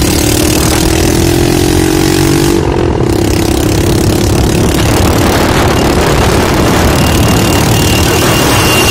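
Motorcycle engine running steadily on the move, its pitch rising slightly over the first few seconds, under heavy wind rush on the microphone.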